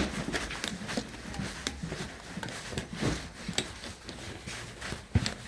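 Scattered, irregular clicks and knocks over a low rumble, with one louder knock near the end.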